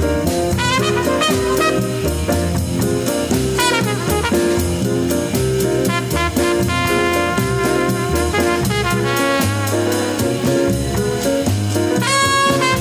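Drum kit with UFIP cymbals played live in a steady groove, the cymbals keeping even time, over a jazz recording with a repeating bass line and trumpet and saxophone lines. A brighter horn phrase comes in near the end.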